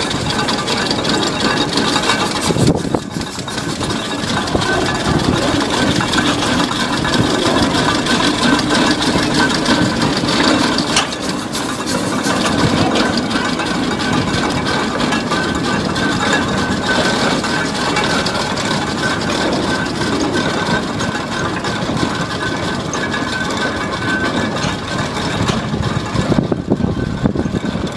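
John Fowler steam traction engine moving slowly past under steam, with a steady, dense mechanical clatter of many quick knocks from its motion and gearing.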